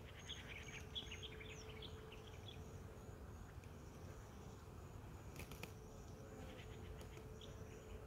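Faint steady hum of honeybees flying around a hive, with a high insect chirp repeating about twice a second and a couple of short runs of rapid ticking chirps.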